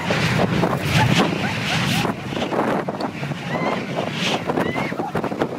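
Jet blast from an MD-80's Pratt & Whitney JT8D engines at takeoff power: a heavy rush of wind buffeting the microphone, with the engines' roar underneath. Over the second half, people shout and whoop as the blast hits them.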